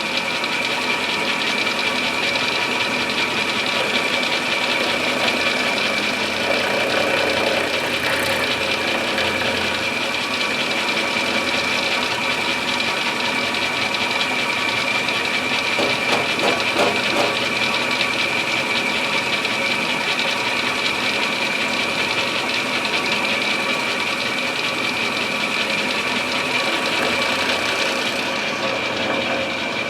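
Milling machine running steadily, its end mill cutting the action inletting into an English walnut gunstock, with a steady high whine.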